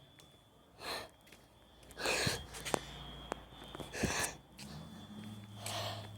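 A person breathing hard close to the microphone, four heavy breaths spaced about one and a half to two seconds apart.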